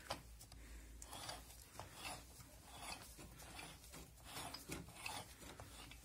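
Faint rubbing and scraping strokes, one every second or so, with a short click at the start: hands working on a scooter's CVT drive belt and variator pulley.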